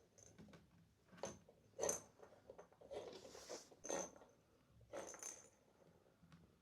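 Kittens playing with their toys: a few light knocks and rattles, the sharpest about two seconds in and again about four seconds in, with short rustles in between.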